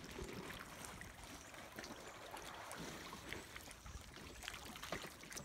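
Faint seawater lapping with small, scattered splashes at the surface.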